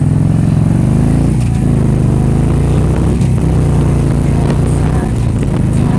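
A motor vehicle's engine running loudly and steadily, its pitch shifting slightly about a second and a half in.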